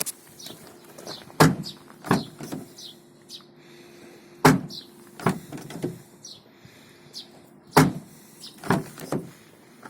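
Hyundai Solaris car door being swung open and shut several times, with a loud clunk, often two close together, about every three seconds.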